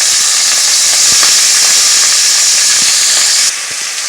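Boneless, skinless chicken thighs sizzling loudly in hot grapeseed oil in a skillet, with a few faint pops. The sizzle drops suddenly to a quieter level about three and a half seconds in.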